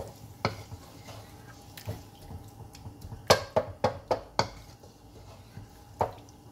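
Wooden slotted spatula stirring beef mince and tomatoes in a metal frying pan, knocking and scraping against the pan. There are single knocks early on, then a quick run of about five knocks about halfway through, and one more near the end.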